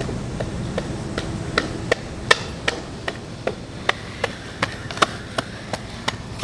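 Skateboard riding along a stone ledge: a low rolling rumble of the wheels, with sharp clicks at an even pace of about two or three a second.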